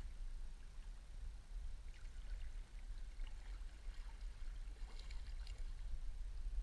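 Canoe paddle dipping and pulling through calm river water, two soft splashing strokes with drips about three seconds apart, over a steady low rumble.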